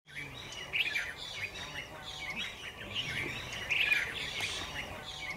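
Many small birds chirping together in a busy chorus of short, quick chirps and calls, with no pause.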